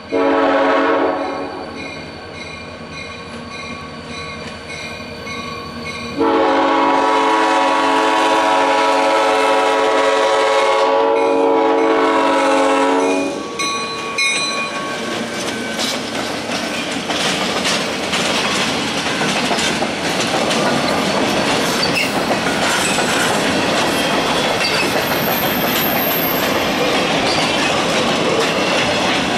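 Nathan AirChime M5 air horn on an EMD SD40M-2 diesel locomotive sounding a grade-crossing warning: a short blast, then a long blast of about seven seconds. Then the locomotive and its freight cars roll close past, wheels clicking over the rail joints.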